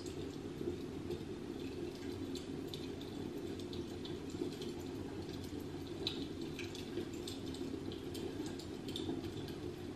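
Quiet room noise: a steady low hum with faint, scattered small ticks and clicks.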